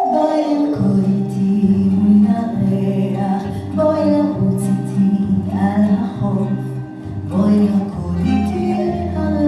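Background music with a steady bass line and a singing voice.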